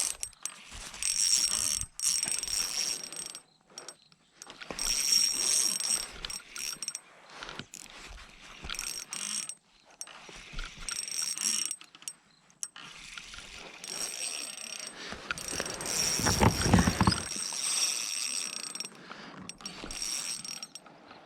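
Ultralight fishing reel ratcheting in repeated bursts while a hooked bass is fought: the reel being cranked and its drag clicking as the fish pulls line. A louder low noise comes about sixteen seconds in.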